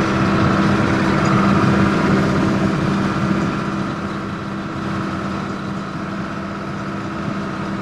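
Combine harvester running steadily while harvesting corn, with a constant drone and hum. It is slightly louder for the first few seconds, then holds even.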